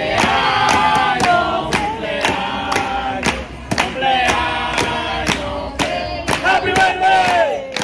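Music with a steady beat and several voices singing.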